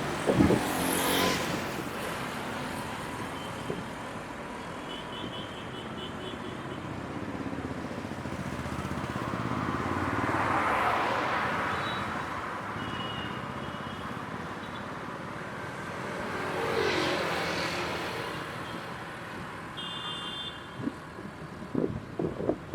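Road traffic: vehicles passing one after another on a highway. One passes just at the start, a louder one swells up and fades away around the middle, and another goes by about three quarters through. Faint short high-pitched beeps come now and then.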